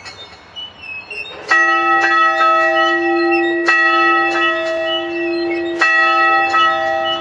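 A bell rung repeatedly, starting about a second and a half in. Strong strokes come roughly every two seconds, with lighter strokes between, and each stroke rings on long.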